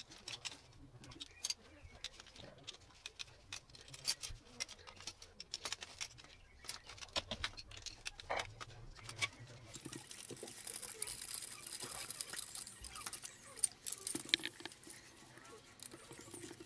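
Irregular small clicks and taps of a hand screwdriver and the metal and plastic parts of a motorcycle licence plate holder as screws are driven in and the bracket is handled. A faint hiss joins in past the middle.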